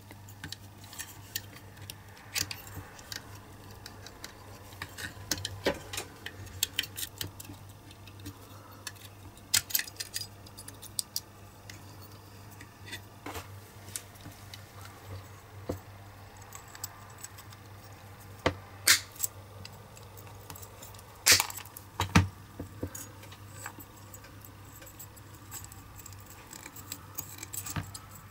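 Small corroded diecast metal toy parts being pried apart with a hobby knife and handled on a cutting mat: scattered light clicks, scrapes and clinks, with a few sharper knocks about two-thirds of the way through, over a faint steady hum.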